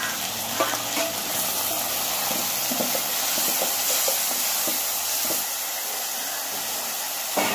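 Chopped tomatoes hitting hot oil and frying onions in a metal pot: a steady sizzling hiss, strongest over the first few seconds as steam rises, with scattered clicks and scrapes of a metal spatula stirring against the pot.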